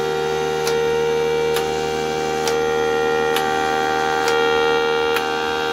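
Mini 3D-printed Thunderbolt 1003 siren running, a steady tone with several overtones. A sharp click comes about every second, as its 12 V solenoids switch.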